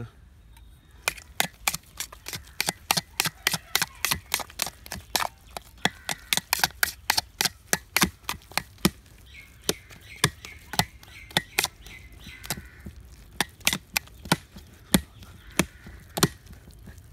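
Quick, irregular sharp slaps, three or four a second, starting about a second in, as a thick, wet yeast bun dough is beaten with a wooden stick in a steel bowl.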